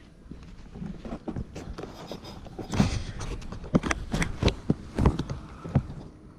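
Footsteps scuffing along a path: a run of irregular knocks and scrapes, loudest in the middle few seconds.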